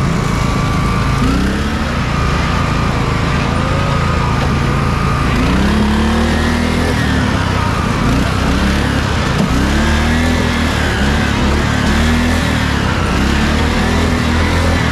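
Riding lawn mower engines running in a race, a steady drone underneath with engine pitch that repeatedly rises and falls as mowers rev up and back off.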